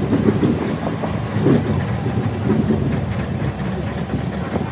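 Open-sided garden tour tram's engine running steadily as it drives along, heard from on board.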